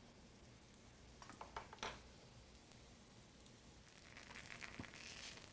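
Faint kitchen sounds: a few light clicks of metal tongs about a second and a half in, then from about four seconds in a faint sizzling hiss of broccoli fritters frying in oil in a skillet.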